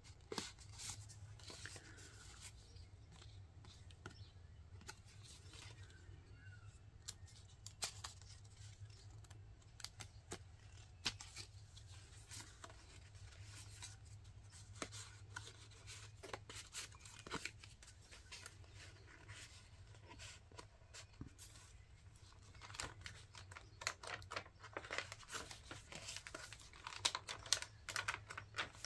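Paper rustling and crinkling as a folded paper envelope is opened and handled, then hand-dyed journal pages are turned. The rustles come thick and fast for the last several seconds, as the pages are flipped.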